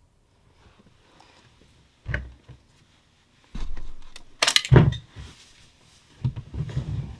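A few knocks and rustles of things being handled, in three separate bursts, the loudest about four and a half seconds in.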